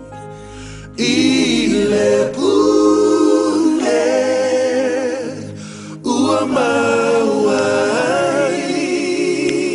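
Background music: unaccompanied voices singing long, held phrases, with short breaks about a second in and again around six seconds in.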